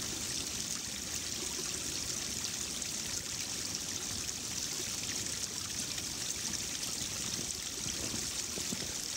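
A steady rushing hiss, even throughout, with no clear single event standing out.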